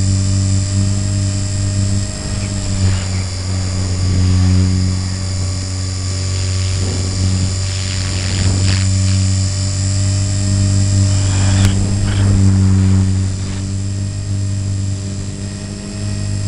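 Radio-controlled helicopter's motor and rotor running steadily in flight, picked up by the camera mounted on the helicopter, with a steady whine over a deep hum. A few brief rushes of noise rise over it.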